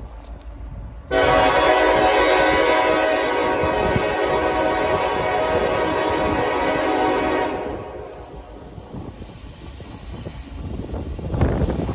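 Air horn of a CN EMD SD70M-2 diesel locomotive sounding one long blast of about six seconds, a chord of several tones that starts suddenly. After it, the low rumble of the locomotive and its train grows louder as it approaches.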